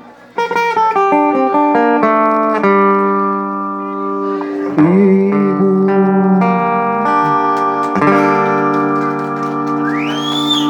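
Acoustic guitar outro: single plucked notes stepping downward, then strummed chords left to ring. A brief rising high tone sounds near the end.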